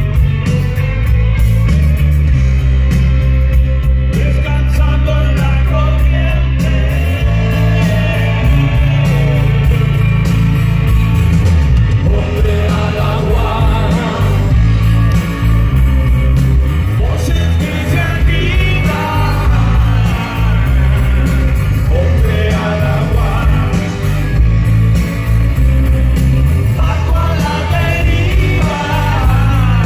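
Rock band playing live, electric guitars over a heavy, steady low end, with a man singing.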